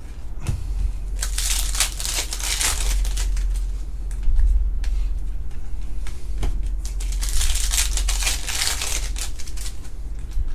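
Plastic crinkling and rustling with small clicks as trading cards and their packaging are handled, in two spells, the first lasting about three seconds and the second starting around seven seconds in, over a steady low hum.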